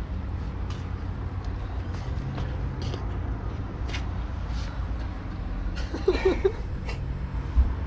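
Steady low rumble under scattered clicks and rubbing noises as a cat brushes against a ground-level camera. About six seconds in there is a short wavering, voice-like call, and near the end a single low thump.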